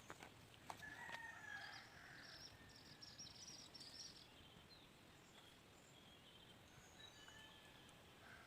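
Very faint outdoor background with distant small birds chirping and whistling, busiest in the first half, and a few light clicks in the first second.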